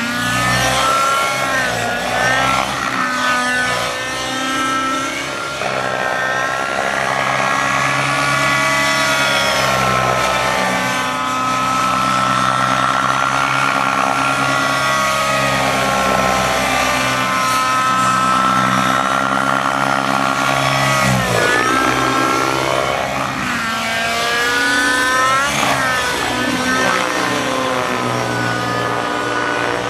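Raptor 90 RC helicopter's nitro two-stroke engine and rotor blades in 3D flight, the note rising and falling with each manoeuvre. About two-thirds of the way in, the pitch drops sharply and then climbs back.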